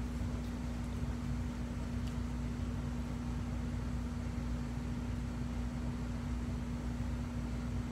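Steady low machine hum with one constant tone over an even hiss.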